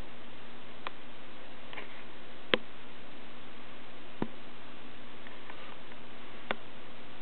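Steady recording hiss broken by four sharp clicks, one every two seconds or so.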